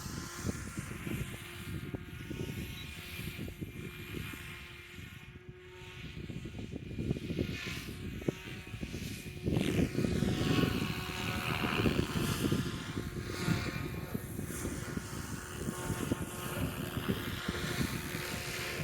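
Helicopter flying, with wind buffeting the microphone; its whine swells and bends in pitch as it passes about halfway through.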